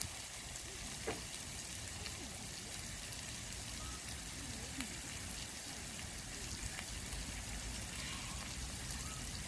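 Barbecued octopus and vegetables sizzling on a hot foil-lined barbecue plate: a steady hiss with a couple of sharper pops.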